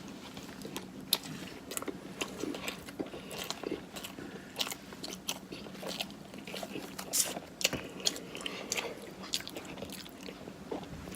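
A person chewing food close to the microphone, with many short wet clicks and crunches from the mouth at an uneven pace.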